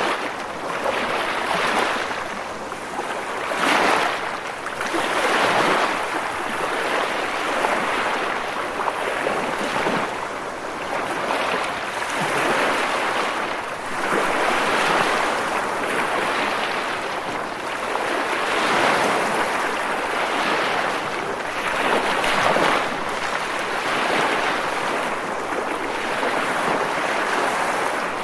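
Sea waves breaking against rocks: a continuous rush of surf, swelling and easing every couple of seconds as each wave crashes.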